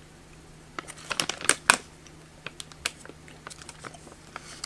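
Plastic candy bag crinkling in a run of sharp crackles as a hand rummages in it for a gummy bear. The crackles are loudest about a second and a half in and thin out to scattered ticks after that.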